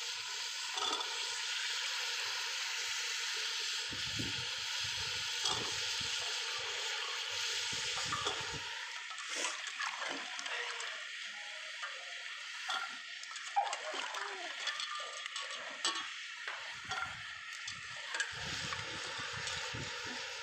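Steady sizzling hiss of masala frying in desi ghee on a wood-fired clay stove. Through the middle stretch come scattered clicks and rustles of raw diced potatoes, peas and carrots being handled in a metal pot.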